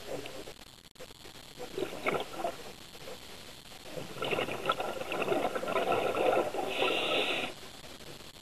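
Scuba diver breathing out through a regulator underwater: a short gurgle of bubbles about two seconds in, then a longer, louder bubbling rush from about four seconds that stops abruptly near the end.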